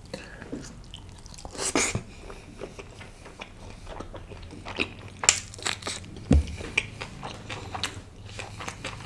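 Close-miked chewing of a mouthful of naan and meat curry: wet mouth sounds with irregular crunchy clicks, a few louder ones about halfway through.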